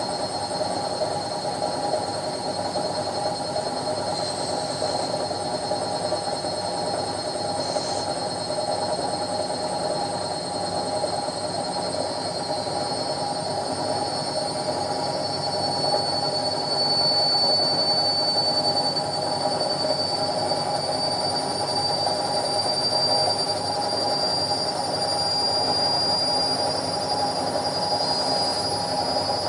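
Indesit washing machine spinning at top speed: a steady hum with a high whine that rises slowly in pitch.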